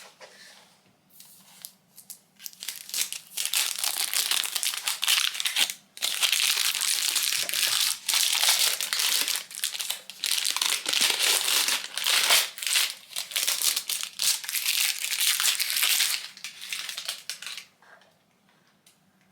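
Crinkly packaging being unwrapped by hand, crumpling and rustling in long spells. It breaks off briefly about six seconds in and dies away near the end.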